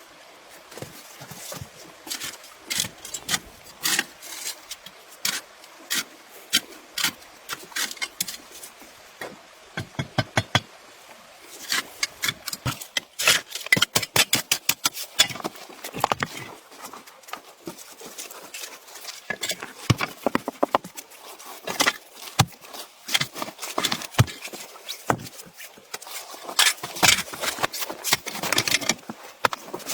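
A long series of short, sharp knocks and crunches, irregular but with quick runs of several strokes in a row, over a light steady hiss.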